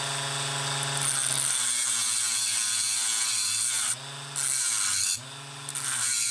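Handheld rotary tool with a thin cut-off disc running and grinding through a battery cell's thick metal case: a steady motor whine under a harsh high grinding hiss. The motor's pitch and level shift a few times as the disc is pressed into the metal and eased off.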